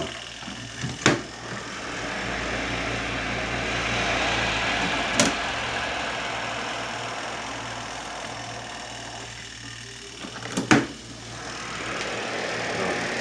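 Zenny portable twin-tub washing machine running: a steady motor hum under a rushing, churning noise that swells and fades, with a few sharp knocks from the machine.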